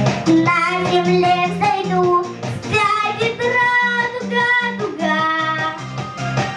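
Song with young female voices singing the melody over a backing track with a steady pulsing bass.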